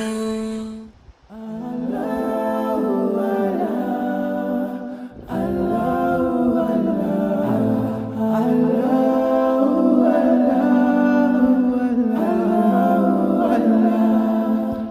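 Wordless a cappella vocal music in an Islamic devotional style: layered voices humming a slow, gliding melody. It breaks off briefly about a second in, and a new phrase swells in at about five seconds.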